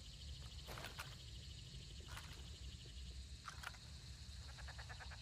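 Faint, distant rifle shots: three single sharp cracks about a second and a half apart, each with a short echo, then a quick run of faint clicks near the end, over a steady outdoor hiss with a high insect-like buzz.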